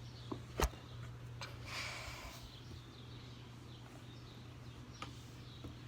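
Handling noise from working on a window air conditioner's casing: two small knocks near the start, a brief scrape about two seconds in and a faint click near the end, over a steady low hum.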